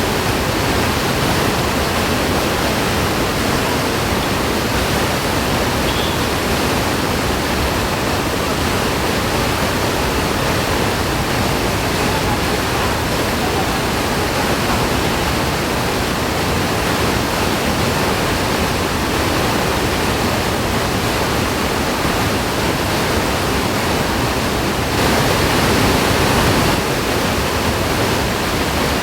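Waterfall's falling water, a loud steady rush, swelling a little louder for a couple of seconds near the end.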